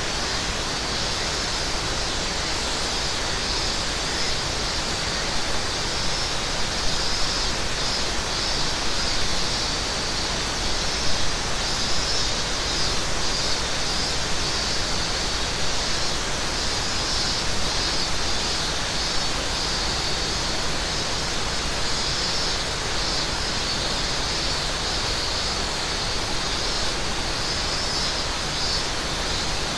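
Steady rush of a mountain river, with a high, pulsing chorus of cicadas over it.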